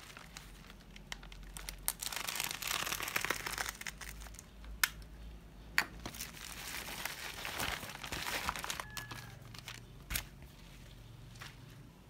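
Plastic parcel wrapping crinkling as it is handled and cut open, with a few sharp clicks.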